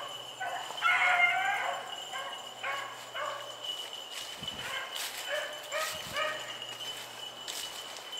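Beagles baying and yipping in a string of short, repeated calls, the loudest about a second in and then growing fainter. These are rabbit hounds giving tongue while they run a rabbit's trail.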